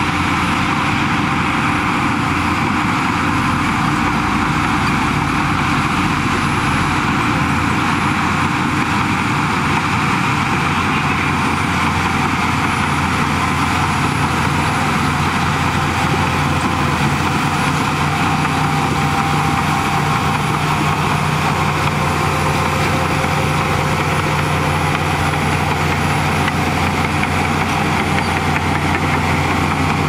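Shantui crawler bulldozer's diesel engine running steadily as the dozer pushes soil with its blade.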